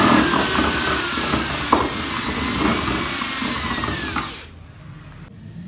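Electric power drill running with a whining motor whose pitch wavers and sags, then stops about four seconds in; one sharp click partway through.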